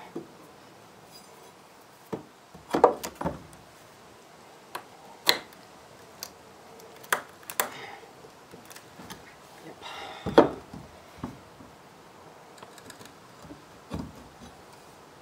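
Steel pry bar clinking and knocking against old timber and concrete in scattered strikes, with two longer scrapes about three and ten seconds in, the second the loudest.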